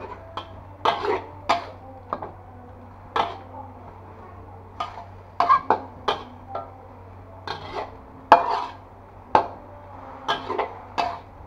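A metal spatula scrapes and clanks against an aluminium wok in irregular strokes, stir-frying water spinach.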